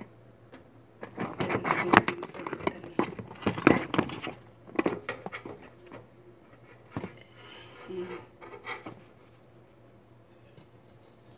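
A run of knocks, taps and light rattles from things being handled at the stove, busiest in the first half, with a few more near the end before it goes faint.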